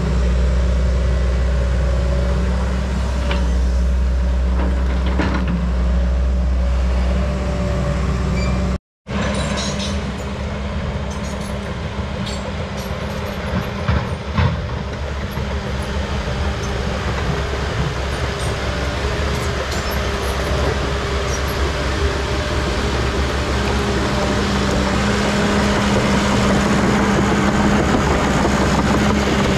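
Diesel earthmoving machines, a CAT D3 crawler dozer and a John Deere excavator, running steadily as they work dirt. The sound drops out abruptly about nine seconds in. After that the engine noise is rougher, with a few clanks around fourteen seconds.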